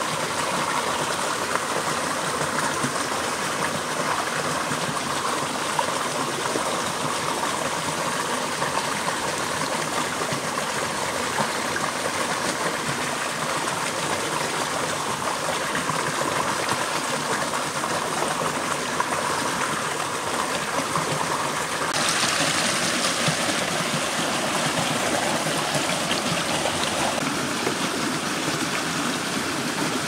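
Running water rushing steadily, turning brighter and a little louder about two-thirds of the way through.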